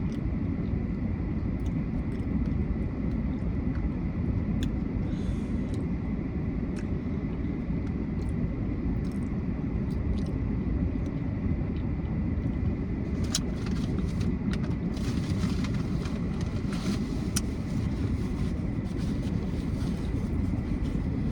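Steady low rumble of a car heard from inside the cabin, with scattered light clicks, mostly in the second half.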